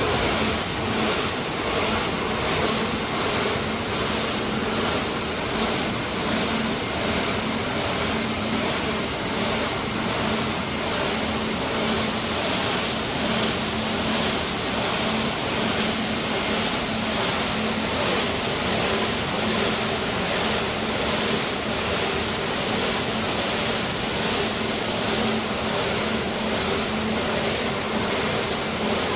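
Tape slitting and rewinding machine running: a steady hiss with a faint low hum underneath.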